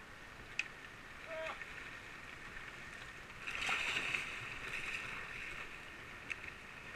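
Steady rush of river current, with kayak paddle strokes splashing as a kayak pulls out into the flow, loudest about halfway through.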